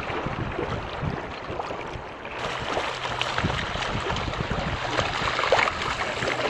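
Wind buffeting the microphone and water rushing along a sailing boat under way, getting louder about two seconds in. A faint low steady hum joins at the same point.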